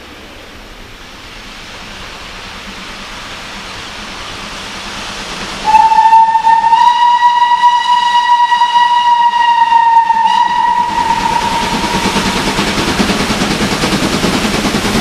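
Steam locomotive approaching with a rush of noise that grows steadily louder. About six seconds in it sounds its whistle in one long blast of about five seconds, then the noise of the passing train swells further.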